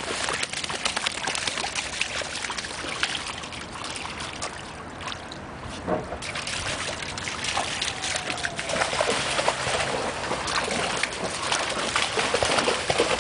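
Two Labradors splashing as they wade through shallow floodwater, over a steady rush of flowing floodwater.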